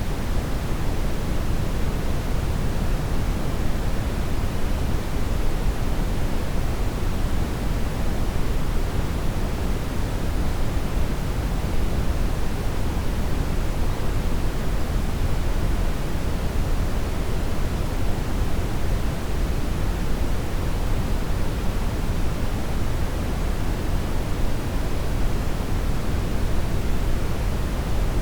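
Steady brown noise: an even, unchanging hiss with most of its weight in the low end, thinning out toward the top.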